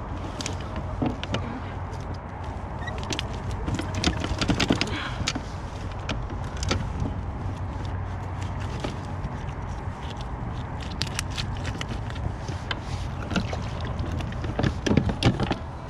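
Handling noise while unhooking a sheepshead with pliers in a landing net aboard a kayak: scattered clicks and knocks of pliers, net and hull, with jacket rustling, over a steady low rumble.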